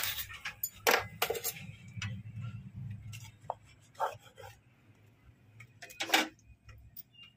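Wooden spatula scraping and tapping against a non-stick tawa and a plate as a cooked pancake is lifted and set down: a few short scrapes and knocks, the clearest about a second in and near six seconds.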